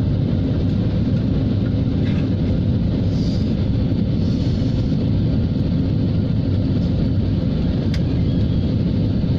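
Steady low rumble of a jet airliner's engines and airflow heard inside the passenger cabin during the approach to landing, with a faint click about eight seconds in.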